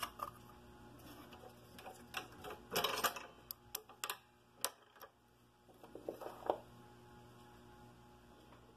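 Irregular small metallic clicks and short scraping sounds from loosening the scroll saw's upper blade clamp with a T-handle key and freeing the blade. The saw motor is off.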